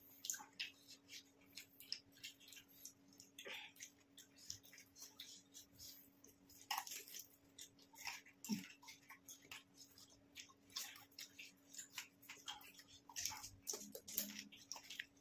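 Faint chewing of water-filled pani puri (golgappa): soft crunches and squishes of fried semolina shells that have gone slightly soft, with many small, irregular mouth clicks.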